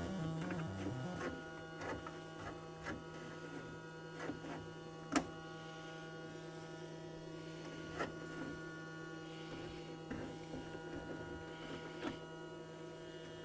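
ARP Avatar synthesizer's audio output. A stepping sequenced pattern stops about a second in, leaving a steady low hum with scattered faint clicks. At this point the first oscillator appears to give no sound.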